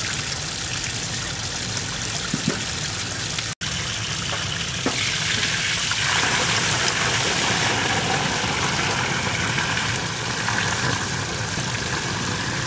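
Rice being rinsed by hand in water in a large metal basin. After about four seconds the cloudy, starchy rinse water pours off over the basin's rim in a steady stream, louder from about six seconds in.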